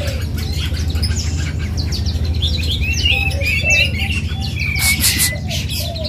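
Several caged songbirds singing at once: a dense, overlapping chorus of chirps and trills, with a steady low hum underneath and a brief rustle about five seconds in.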